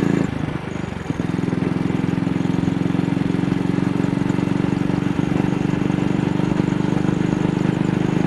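AJS Model 8 motorcycle engine pulling at a wider throttle opening, its beat stumbling about half a second in and breaking briefly now and then: it is still misfiring.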